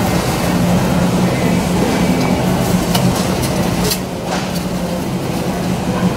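Steady low hum of a supermarket's refrigerated freezer cases and ventilation, with a few light clicks about three and four seconds in.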